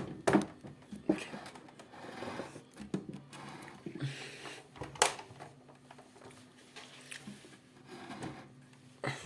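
Ariston 4.5 kg front-loading washing machine in its wash cycle: a steady motor hum as the drum turns, with a few sharp clicks or knocks, one about a second in, one about five seconds in and one near the end.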